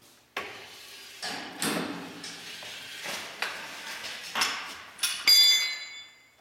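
Steel knocks and scrapes as a square-tubing forklift attachment is handled and slid onto a fork, ending in a loud metallic clank about five seconds in that leaves the steel ringing.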